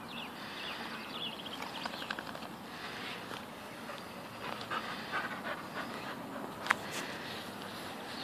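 Yellow Labrador dogs panting hard from exertion during play, in short rasping breaths. A single sharp click sounds about two-thirds of the way through.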